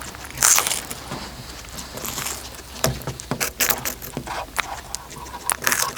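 A cat eating close to the microphone: an irregular run of sharp chewing clicks and short scraping, rustling noises.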